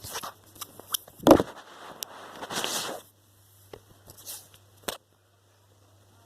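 A stick being knocked, scraped and chewed by a playing cat: irregular clicks and scuffles, with one louder knock just over a second in. The scuffling stops about five seconds in.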